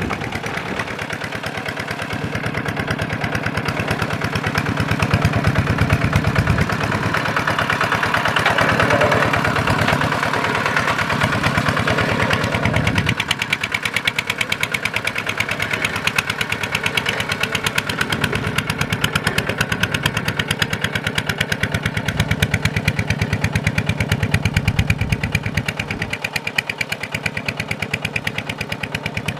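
Kubota diesel engine running steadily with a fast, even firing beat. The deeper part of the sound drops away about thirteen seconds in.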